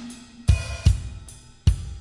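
Instrumental song intro carried by a drum kit beat: sharp hits with ringing cymbal tails, falling in pairs a little under half a second apart, about one pair a second, with a low held note sounding under some of them.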